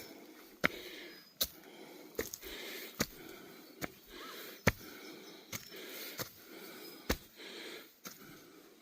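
Heavy breathing of a tired hiker climbing a steep trail, with a sharp step sound roughly every 0.8 seconds.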